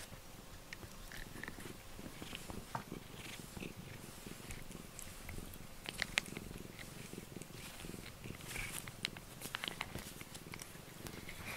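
Domestic cat purring steadily while being brushed with a rubber grooming brush, close to the microphone. Scattered soft clicks and rustles of the brush and handling, the sharpest about six seconds in.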